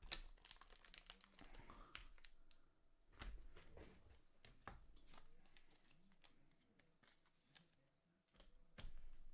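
Faint tearing and crinkling of a foil trading-card pack being opened, with scattered light crackles and clicks as it is handled.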